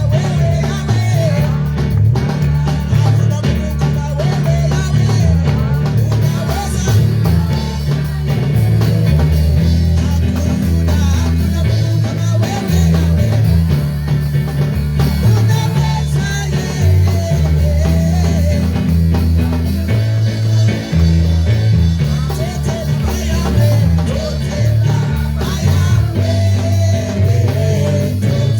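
Live church band music with a strong, stepping bass line, guitar and drums, and some singing over it.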